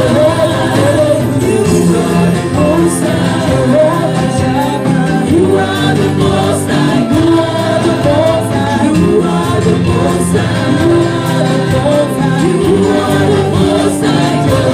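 Church choir and lead singers singing a gospel worship song through microphones, with live band accompaniment including electric guitar.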